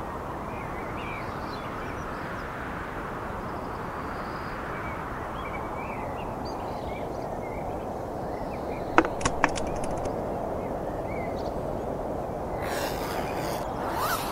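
Steady outdoor background rush with faint scattered bird chirps. About nine seconds in come three sharp crackles from a plastic water bottle handled in the hands, and near the end a fabric rustle as a backpack is opened.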